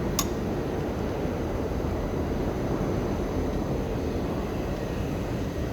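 Subway station background noise: a steady low rumble with no distinct events, and one sharp click shortly after the start.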